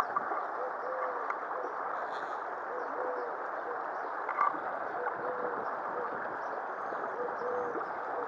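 Shallow stream water rushing steadily over a stony riffle, with a bird's low cooing calls repeating in short phrases every couple of seconds.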